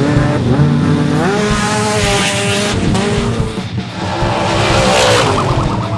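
Off-road race truck engine revving hard, its pitch climbing and dropping back several times. A rushing hiss rises over it twice.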